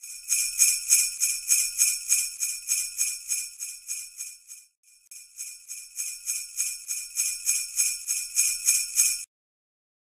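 Sleigh bells shaken in a steady rhythm, about four or five shakes a second, with a short break about halfway through, stopping near the end.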